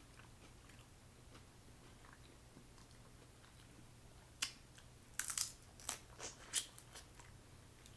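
Snow crab leg shells cracking and crunching as they are broken open and bitten: one sharp crack about halfway through, then a quick cluster of cracks and crunches over the next two seconds.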